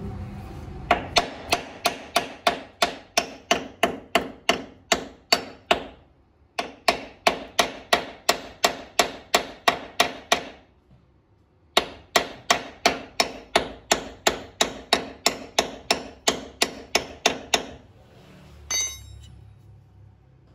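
Hammer striking a steel bracket welded under the wheel arch, in three quick runs of evenly spaced blows at about four a second, each blow ringing briefly, with short pauses between the runs. A single metallic clink comes near the end.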